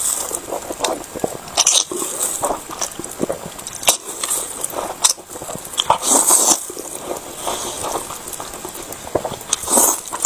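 Close-miked eating of thick sauced noodles: several loud wet slurps as strands are sucked in, with chewing between them.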